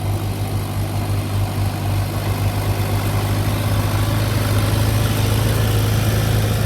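Tractor engine running steadily with a strong low hum under a constant rush of noise, heard from on board.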